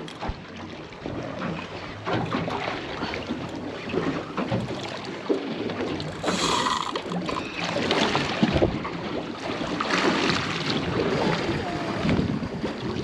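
Water slapping and sloshing against a small boat's hull, with wind buffeting the microphone. There is a brief louder rush about six seconds in.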